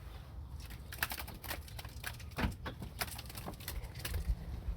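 Irregular light taps, ticks and rustles inside a pickup truck's cab, where a trapped bird is loose.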